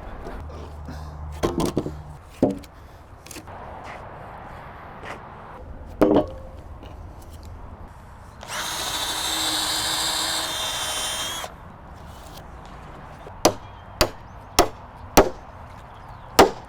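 Woodworking on heavy timber: a power tool runs steadily for about three seconds in the middle, working into the wood, with scattered knocks before it. Near the end come five sharp hammer-like knocks about half a second apart.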